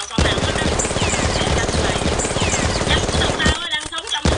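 Rapid automatic gunfire sound effect, a dense stream of shots with a short break near the end.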